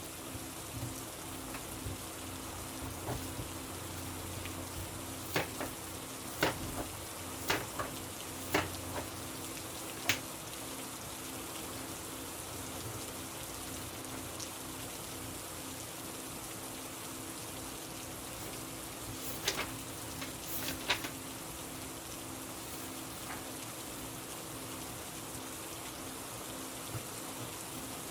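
Steady rain, with a few sharp clicks or taps heard against it, bunched around five to ten seconds in and again around twenty seconds in. A faint low hum runs underneath.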